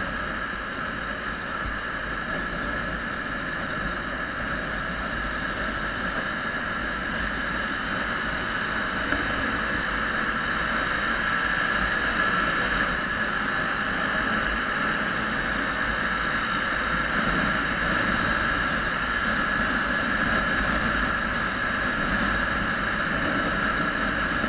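Yamaha WR125R single-cylinder motorcycle cruising at steady road speed: wind rushing over the camera microphone along with engine and tyre noise, growing slightly louder partway through.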